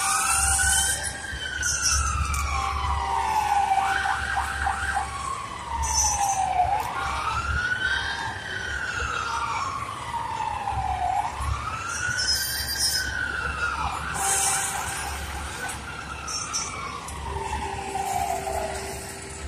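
A siren wailing, sweeping slowly up and down about four times, over the low rumble of a heavy truck driving slowly past.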